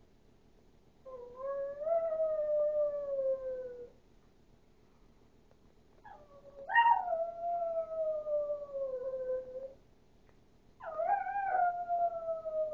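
Chihuahua howling: three long howls with pauses between. Each rises briefly and then slides slowly down in pitch, and the second and third break in with a sharp yelp at the start.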